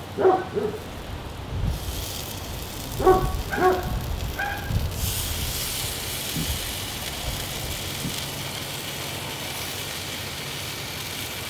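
A dog barks a few times, once near the start and again around three to four seconds in; then, about five seconds in, a steady sizzle sets in as dough-wrapped chicken puffs cook on the hot grill.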